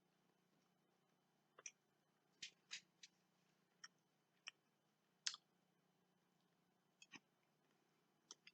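Near silence broken by about ten faint, scattered clicks as a piece of dark chocolate is eaten.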